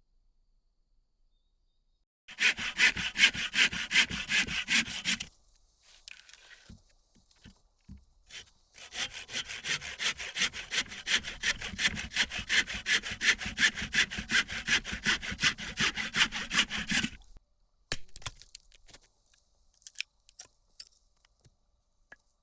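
Hand saw cutting firewood in quick, even back-and-forth strokes: a run of about three seconds, a short pause, then a longer run of about eight seconds, followed by a few light knocks.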